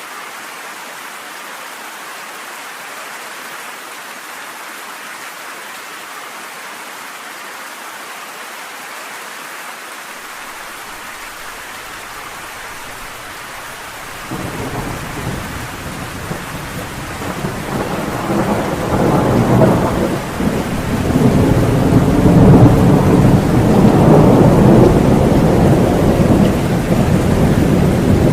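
Steady rain falling, then about halfway through a thunder rumble starts and builds into a long rolling peal that is loudest in the last third and is still rumbling at the end.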